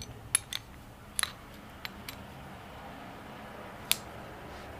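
Steel gear shift forks and their rod on a Royal Enfield UCE gearbox clinking against each other and the gear clusters as they are handled: about half a dozen scattered sharp metallic clicks.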